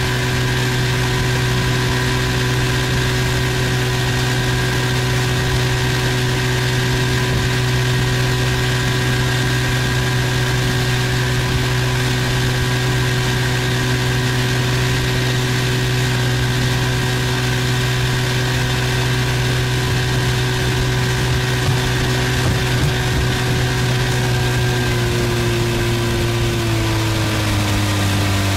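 Boat's outboard motor running steadily under way, its pitch dropping near the end as the engine slows.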